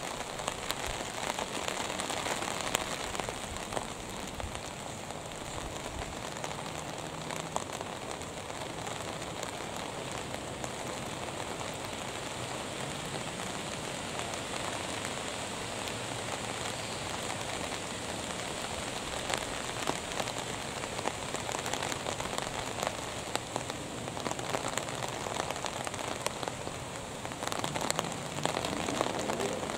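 Steady rain falling, a dense patter of many small drops, a little louder near the end.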